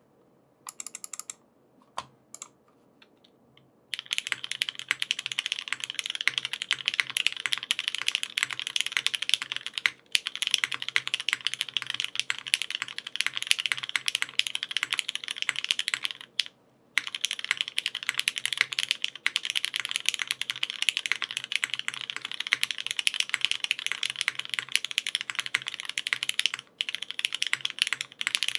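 Geonworks F2-84 mechanical keyboard with lubed Cherry MX Black linear switches on a 1.2 mm FR4 plate and GMK keycaps, being typed on. A few scattered keystrokes come first, then fast continuous typing from about four seconds in, broken by a few brief pauses.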